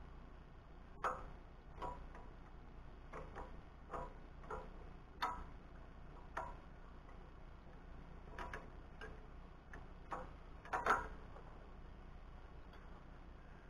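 Scattered sharp clicks and light metal taps, about a dozen at irregular intervals with a louder double click near the end: hand tools and metal parts being handled while the U-bolts are fitted to the rear axle and leaf springs.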